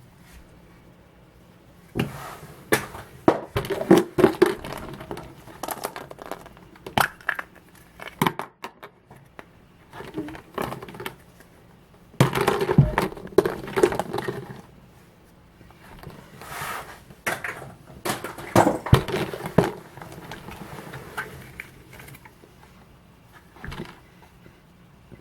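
Foil wrappers of chocolate surprise eggs crinkling and crumpling as the eggs are unwrapped and opened, with sharp cracks and clicks. It comes in several bursts of handling with short pauses between.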